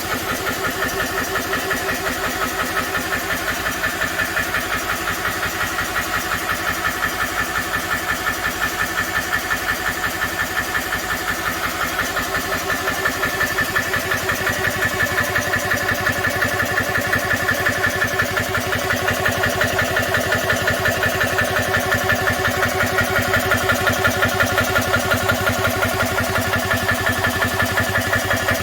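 GX CS2 portable oil-free PCP air compressor running steadily with a fast, even pumping pulse as it fills an air rifle's reservoir. About halfway through the sound becomes slightly fuller and louder.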